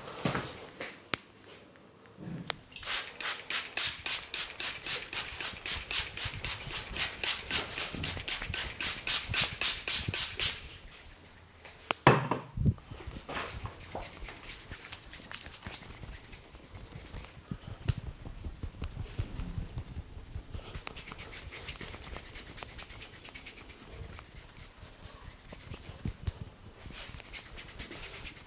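Indian head massage: hands slapping and tapping rapidly on a person's head, about five sharp strokes a second for several seconds, then one loud slap, followed by softer, slower patting and rubbing.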